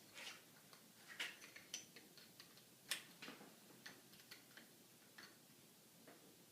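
Faint, irregular metal clicks and ticks of an Allen key turning a stainless steel screw as it is tightened down through a rifle pistol grip, the sharpest click about three seconds in.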